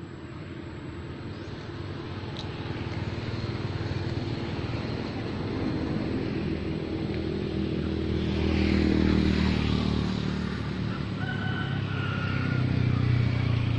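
A motor vehicle's engine runs in the background, swelling louder and then easing about two-thirds of the way through. Near the end a rooster crows.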